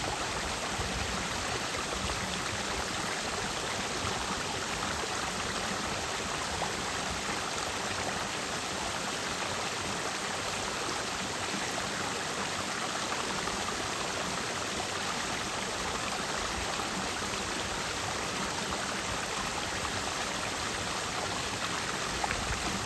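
Clear mountain stream flowing and splashing over rocks: a steady, even rush of water.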